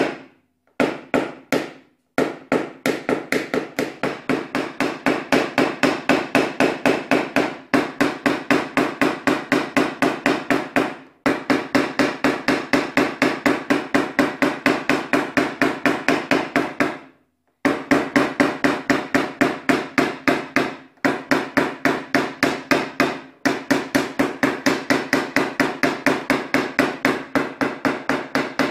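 A PDR tap-down punch struck rapidly with a small hammer against a car door's sheet-metal skin, knocking down high spots. Each blow sets the panel ringing at a steady pitch, in long fast runs of taps broken by brief pauses.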